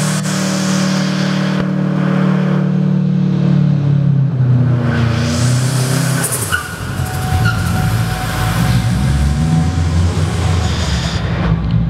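A car engine held at high revs through a burnout, with the tyres spinning against the concrete. Around four to six seconds in the revs fall away and the engine drops to a lower, rougher note as the car pulls off.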